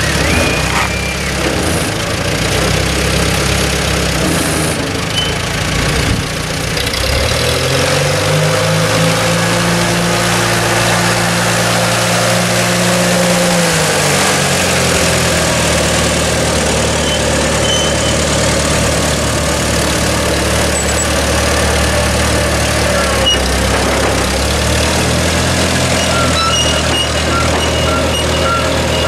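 Custom-built McCormick Farmall tractor with three engines running as it is driven. The engine note rises about seven seconds in, holds, drops back at about fourteen seconds, then runs steadily.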